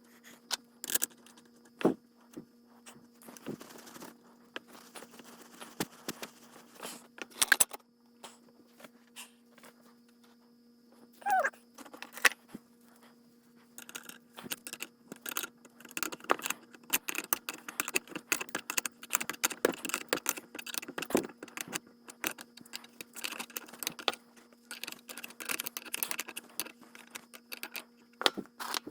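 Small metal parts and hand tools clinking and tapping irregularly during reassembly of a differential carrier, the taps getting busier in the second half. A brief squeak rises and falls about eleven seconds in.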